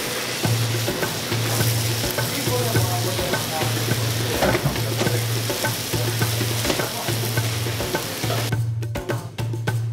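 Chicken sukka sizzling as it fries in a steel pan, stirred and scraped with a metal spoon. Near the end the sizzling drops away and percussive music takes over.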